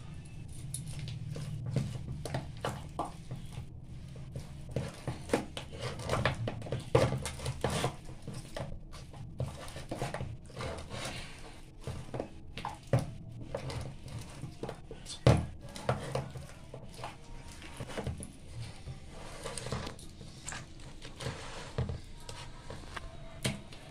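Hands squeezing and mashing a soft banana-and-semolina dough in a stainless steel bowl, with irregular squelches and frequent knocks of the hand against the metal bowl.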